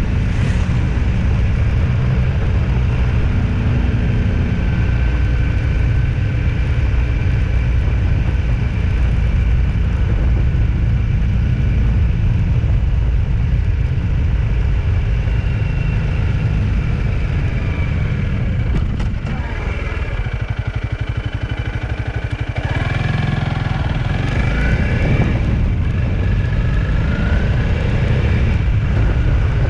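A motor vehicle on the move: steady engine and road noise under a heavy low rumble, easing off briefly about two-thirds of the way through before picking up again.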